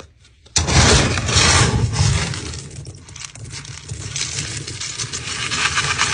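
Dry cat kibble rattling in a plastic storage bin as a scoop is dug into it, a dense clatter of many small pellets that starts suddenly about half a second in.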